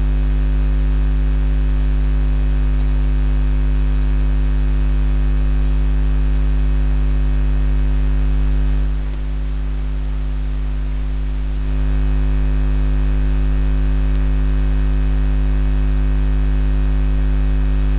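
Steady electrical mains hum with hiss, picked up by the recording setup, dipping slightly for about three seconds near the middle.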